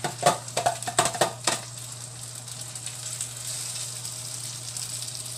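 Pasta and egg mixture being poured into a hot buttered frying pan and sizzling. A quick series of sharp taps and knocks comes in the first second and a half as it goes in, then a steady sizzle.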